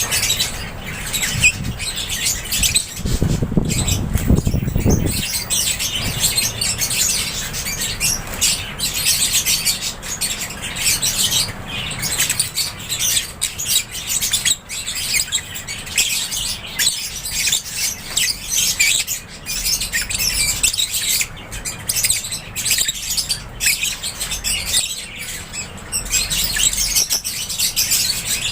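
A flock of lovebirds chirping and chattering continuously, many high, overlapping calls at once. A brief low rumble comes about three seconds in.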